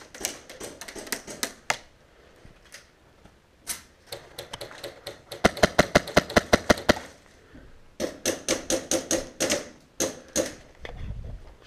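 Ares Amoeba AM-013 (Honey Badger) airsoft rifle with a PolarStar Jack HPA engine firing several strings of rapid shots. The loudest and fastest burst comes about halfway through, with shorter strings before and after.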